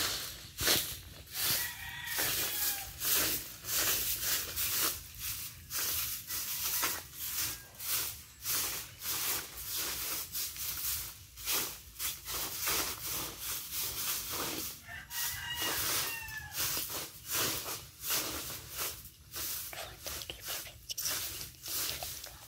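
Broom sweeping dry leaves over dirt ground in quick, repeated scratchy strokes, about two a second. A bird calls faintly about two seconds in and again around fifteen seconds in.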